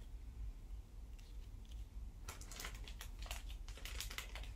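Light clicking and rustling of small merchandise items and packaging being handled. It is sparse at first, then a quick run of small sharp clicks starts a little over two seconds in.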